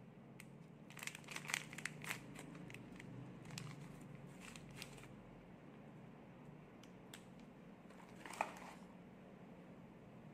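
Paper tea-bag sachet crinkling and tearing as it is opened, in a cluster of crisp crackles, followed about eight seconds in by a single light knock with a short ring.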